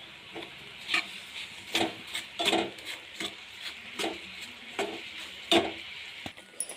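Flat metal spatula scraping and stirring in a metal kadhai, mixing ground Parle biscuits into bubbling milk and sugar syrup. It makes about two strokes a second over a steady hiss from the simmering mixture.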